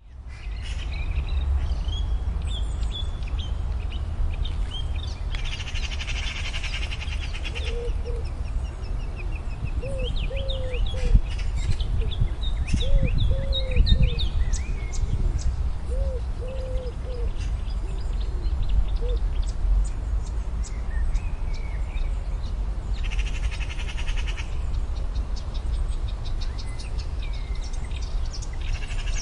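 Marsh warbler singing: a fast, varied jumble of high chirps, whistles and trills, broken twice by a harsh buzzy rattle. Lower hooting calls come in short groups through the middle, over a steady low rumble.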